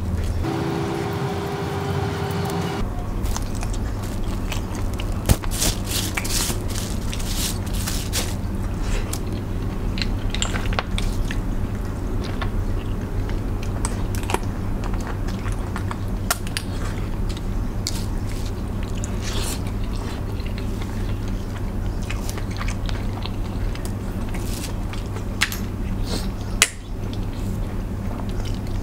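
Eating mixed seafood by hand: crab shells cracked and pulled apart, with biting and chewing. Many small crackles and clicks come irregularly throughout, over a steady low hum.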